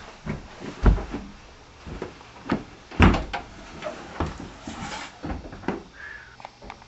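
Irregular footsteps and knocks, the loudest about one second and three seconds in, as someone walks down stairs. Near the end a door is handled and opened.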